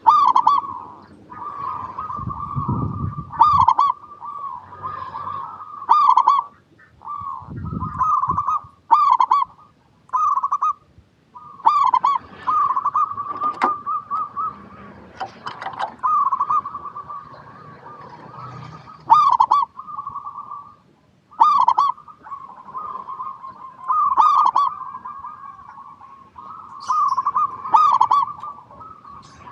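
Local zebra dove (perkutut) cooing in long, rapid series of soft rolling notes, phrase after phrase with short pauses between, in full steady song. Two brief low rumbles sound under the cooing in the first eight seconds.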